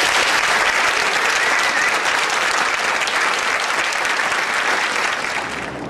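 Audience applauding steadily, dense and even. It drops away abruptly near the end.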